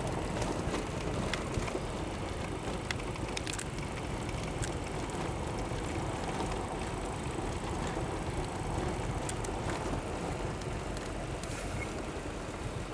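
A car running on tire chains over a snowy road, heard from inside the cabin: a steady low road rumble with scattered sharp clicks.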